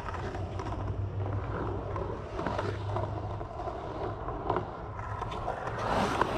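Skateboard wheels rolling over a concrete bowl: a steady rumble with a few short knocks, growing louder near the end as the board comes closer.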